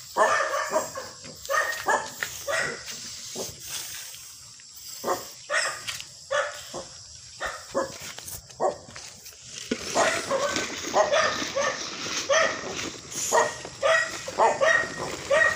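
A dog barking over and over in short barks, with fewer barks in the middle and a quicker run of them in the last third.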